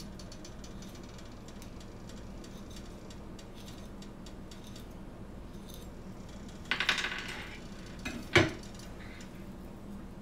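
Faint ticks of a kitchen knife scoring an avocado half held in the hand. Then, around two-thirds of the way in, a short rattling clatter of metal on glass, followed a second later by one sharp clink as the knife knocks against a glass mixing bowl.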